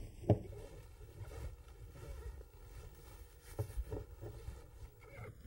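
Shredded cabbage being packed down by hand into a glass canning jar: soft pressing sounds with one sharp knock against the jar about a third of a second in and a few lighter knocks around four seconds in.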